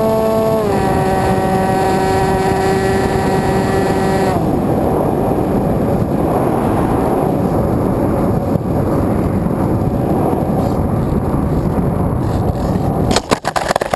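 Electric motor and propeller of a Dynam Hawk Sky RC plane whining steadily; the pitch drops a step about half a second in and the motor cuts off about four seconds in. Air then rushes steadily past the gliding plane until a quick series of knocks and scrapes near the end, typical of the model touching down.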